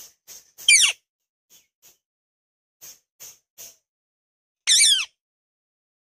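Indian ringneck parakeet calling: two loud, shrill calls that waver and fall in pitch, one about a second in and one near the end, with soft short chirps between them.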